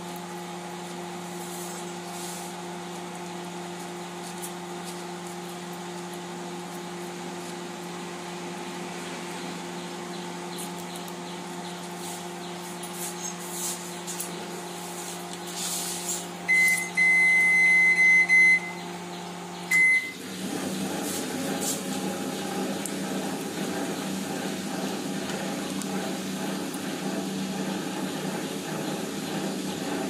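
Convection microwave oven humming steadily, with a loud long electronic beep a little past halfway and a short second beep just after. The hum then turns rougher.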